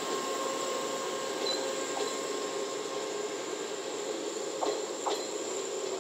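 JNR 381-series electric train rolling slowly along the station track, a steady rumble with a faint wheel-and-motor whine and two short clicks near the end.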